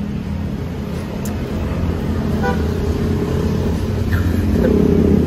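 Nearby street traffic: motor engines running, growing louder toward the end, with a vehicle horn sounding.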